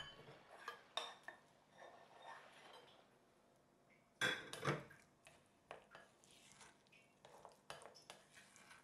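Pink silicone spoon-spatula stirring steamed rice and coconut milk in a glass bowl: faint scraping and light taps against the glass, with two louder knocks close together about four seconds in.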